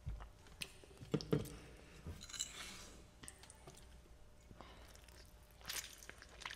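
Close-miked eating of spaghetti off a fork: wet chewing and lip smacks, with scattered sharp clicks and a few short noisy bursts.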